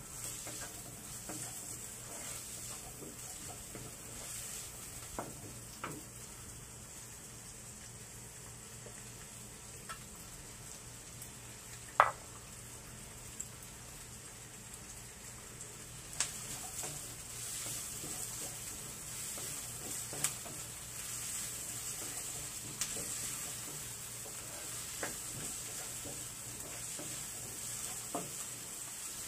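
Diced onion sizzling in oil in a non-stick wok, with a steady hiss. A wooden spatula stirs it, giving scattered scrapes and knocks against the pan; the sharpest knock comes about twelve seconds in.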